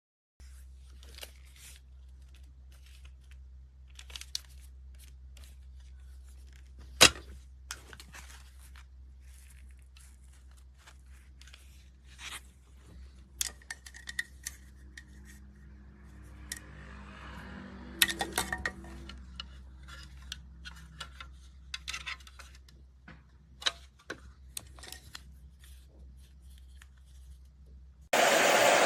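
Scattered clicks, taps and light rustles of handling, with one sharp click about 7 s in. Near the end a Wavytalk ionic hair dryer switches on with a sudden loud, steady rush of air.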